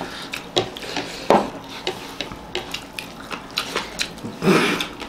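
Sounds of people eating rice and curry with their hands: irregular small wet clicks and smacks of chewing, with fingers mixing rice on plates, and a longer, louder wet noise a little after four seconds in.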